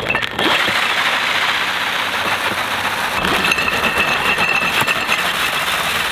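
Electric snow racer running on ice: its 15 kW brushless motor drives a back wheel studded with 240 screws, making a steady, loud, harsh hiss as the wheel grinds over the ice. A high whine comes in for about a second midway.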